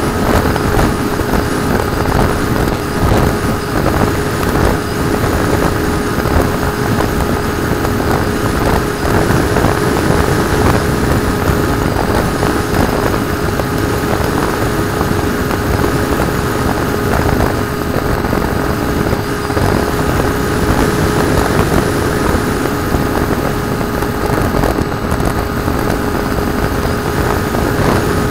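Bixler 2 RC plane's brushless electric motor and pusher propeller running steadily in flight, a constant whine over a rushing, fluttering noise of air on the onboard camera.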